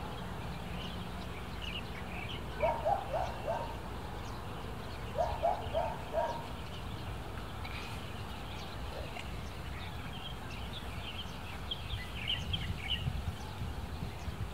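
Birds calling: scattered high chirps throughout, and twice a run of four quick, lower calls. Near the end, soft thuds of a hoe blade striking soil.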